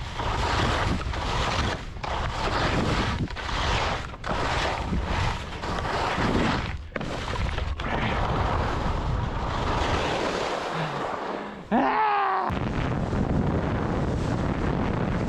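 Wind buffeting the action camera's microphone and skis running fast over snow, a steady rush with frequent brief dips. About twelve seconds in, a short sound slides down in pitch as the rush cuts back in.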